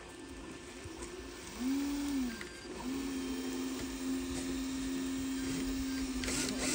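Small electric motor of an RC dump truck's tipping mechanism whining: a short burst that rises and falls in pitch about a second and a half in, then it starts again near three seconds and runs at a steady pitch as the loaded dump bed begins to lift.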